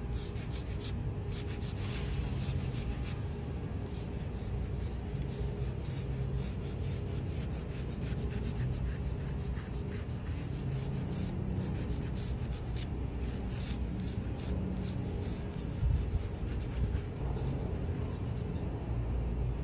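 Sidewalk chalk rubbed and scraped over rough concrete in quick repeated strokes, laying down and blending colour.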